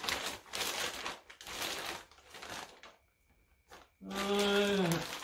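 Thin plastic bag crinkling and rustling as it is handled and pulled open, for about three seconds, then stopping.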